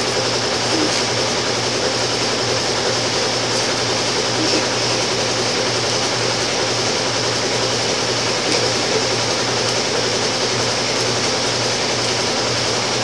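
Steady machine noise: a constant whoosh with a low hum underneath, unbroken throughout.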